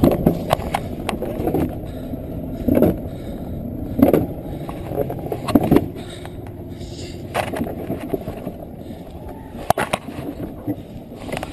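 Alpine coaster sled running fast along its steel rail: a steady rolling rumble with irregular knocks and rattles as it runs downhill.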